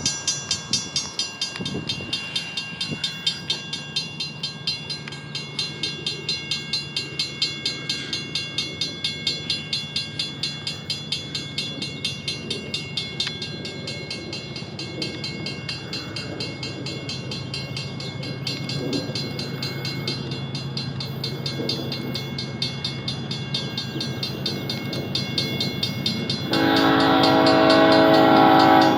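A freight train's diesel locomotives running with a steady low drone, with a quick, even beat of about two to three pulses a second through the first half. Near the end the lead locomotive, a BNSF GE ES44C4, sounds its air horn, a loud chord of several pitches and the loudest sound.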